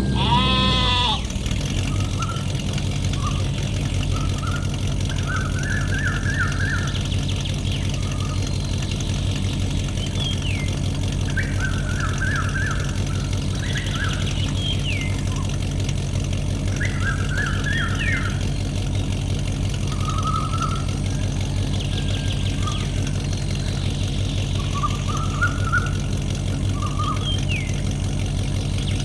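A small engine running steadily with a fast knocking pulse, while sheep bleat again and again over it and a few short high chirps fall in pitch. A loud falling tone opens it in the first second.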